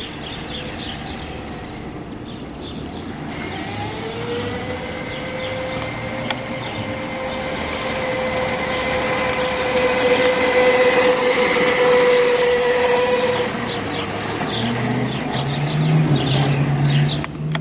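Kunray 72-volt, 3000-watt brushless electric go-kart motor whining at a steady pitch as the kart drives past at full throttle in its medium speed setting. It grows louder to a peak about ten to twelve seconds in, then fades. A lower hum sets in near the end.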